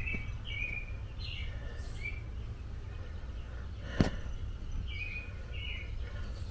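Small birds chirping in short, repeated high calls over a steady low hum, with one sharp click about four seconds in.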